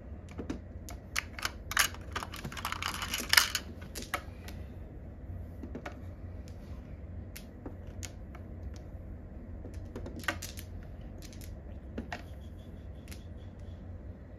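Mahjong tiles clicking as players draw, discard and set them down on the table: a dense clatter in the first few seconds, then sparser single clicks, over a low steady hum.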